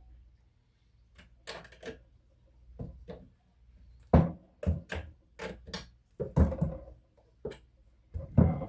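Irregular knocks and clunks of hand tools and chainsaw parts being handled while the bar nuts are tightened, sparse at first and louder and closer together in the second half.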